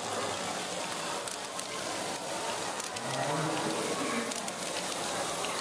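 LEGO Technic ball-lifting mechanism driven by several Power Functions motors: a steady buzzing whir of motors and gears, with scattered plastic clicks and clatter.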